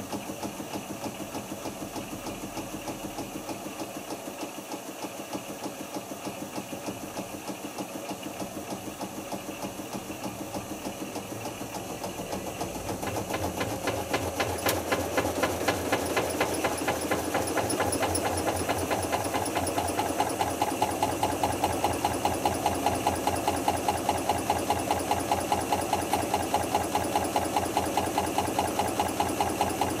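Hotpoint HF8B593 washing machine on its final spin: the drum turns fast with a steady motor hum and a rapid, even pulse. The sound grows noticeably louder about halfway through and holds there.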